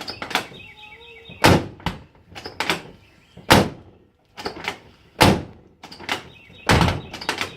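A 1985 Chevy Suburban's door slammed shut four times, each a loud, sharp thud about every one and a half to two seconds, with lighter latch clicks between. It needs hard slamming to latch because the plastic bushing on the striker pin has broken away.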